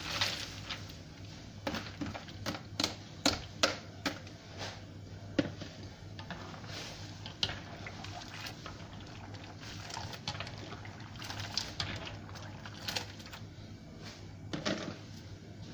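Washed raw peanuts poured from a colander into a wok of milky broth, then stirred with a spatula: liquid sloshing, with sharp clicks and knocks of the spatula against the metal wok, thickest in the first few seconds.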